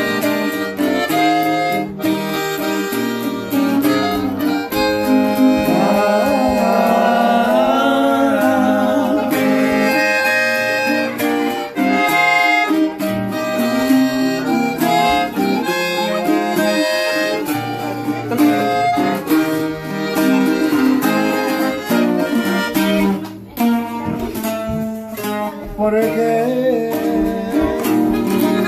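Norteño music from a diatonic button accordion carrying the melody over a strummed bajo sexto keeping a steady rhythm.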